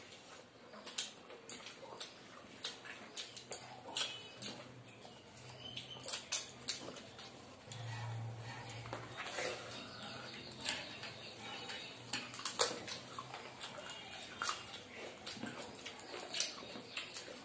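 Close-up eating sounds of two people eating rice and chicken curry by hand: chewing and wet lip smacks, with many short irregular clicks and fingers working the rice on the plates.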